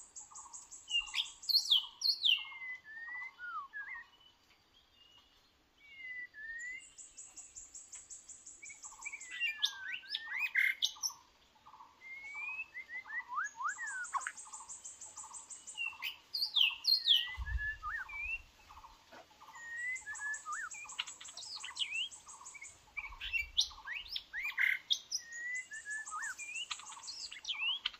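White-rumped shama singing rich whistled phrases that slide up and down, among other birdsong: a steady run of repeated lower notes, about three a second, and bouts of high buzzy trill. A dull thump about 17 seconds in.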